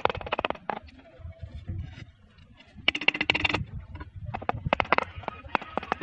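Runs of quick, sharp taps as a mason's trowel knocks clay roof tiles to bed them into wet mortar: one run at the start, another about three seconds in, and more from about four and a half seconds on.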